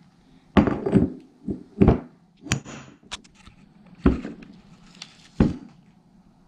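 A CV axle's splined outer joint being test-fitted into a machined rear wheel hub and the assembly laid on a workbench: about half a dozen separate metal knocks and clunks, a few seconds apart.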